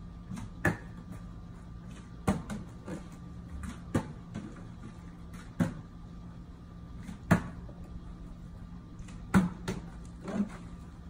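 A plastic water bottle is flipped again and again, landing with a sharp knock on a concrete stepping stone about seven times, roughly every one and a half seconds, over a steady faint hum.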